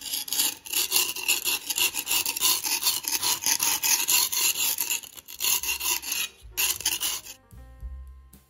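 Hand paint scraper rasping across a plastered wall in quick repeated strokes, flaking off old peeling paint. The scraping stops near the end as music comes in.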